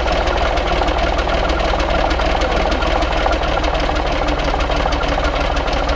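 Truck diesel engine on a test stand idling steadily with a rapid, even diesel clatter, running on its first start after standing for years.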